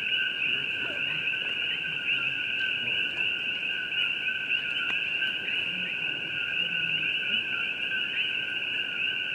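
A dense chorus of coqui frogs: countless overlapping two-note 'ko-kee' calls merge into a steady high chirping on two pitches, the upper note rising in quick little chirps.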